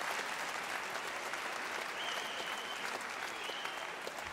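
Large theatre audience applauding, a dense clapping sound that begins to die away near the end. A thin, steady high tone runs over it for about two seconds in the middle.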